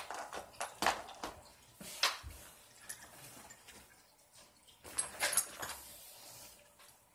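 Scattered clicks, taps and light rattles of small plastic and metal RC car parts being handled and worked on, with a short cluster of clicks about five seconds in.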